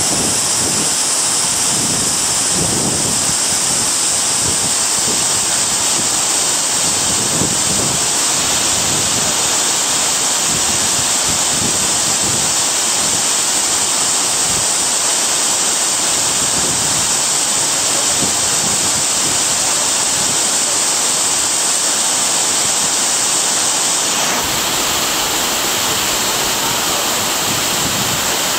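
Loud, steady rush of water, like a waterfall or breaking surf, that changes tone abruptly about 24 seconds in.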